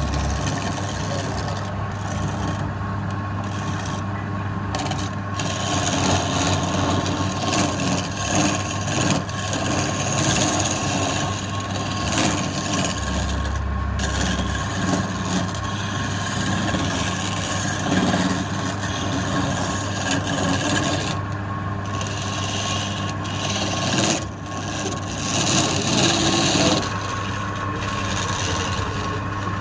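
Wood lathe running with a steady motor hum while a tool works the spinning wood, a rough scraping that swells and eases as the tool is pressed in and drawn back.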